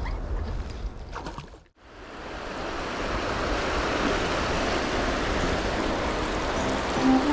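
A steady rush of flowing river water, fading in after a sudden cut to near silence a couple of seconds in.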